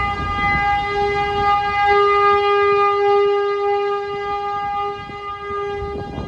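Outdoor tornado warning siren sounding one steady, unbroken tone, slightly fainter in the last couple of seconds.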